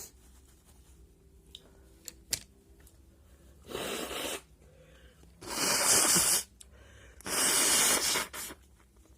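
A man's sneezes, set off by tickling his nose with paper during hay fever: a shorter burst of breath, then two loud explosive sneezes about a second apart.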